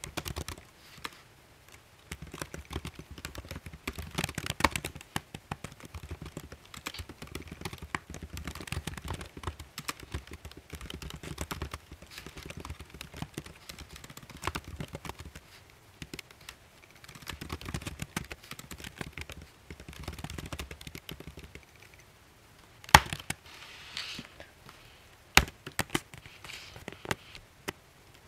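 Typing on a computer keyboard: quick runs of key clicks with short pauses, and a couple of louder single key strikes near the end.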